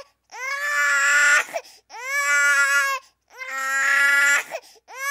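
An infant crying in long wails, three in a row with short breaths between and a fourth starting near the end. Each cry swoops up in pitch and then holds.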